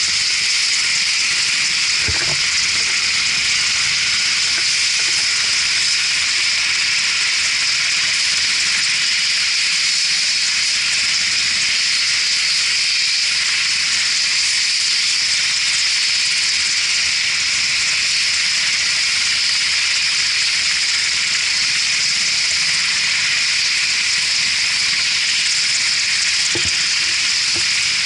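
UH-60 Black Hawk helicopter's turboshaft engines running on the ground, a steady high-pitched hiss.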